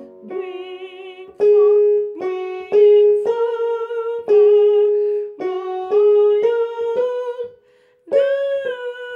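A woman singing the soprano melody of a hymn in slow held notes, one pitch per syllable, some with vibrato, with a short break about three-quarters of the way through.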